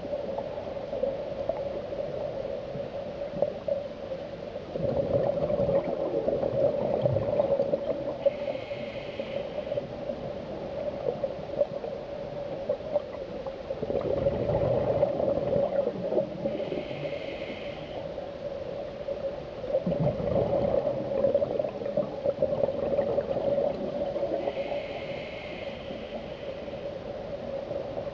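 Underwater sound through a camera housing: a steady drone, with three louder muffled rumbling surges of bubbles from scuba divers exhaling through their regulators.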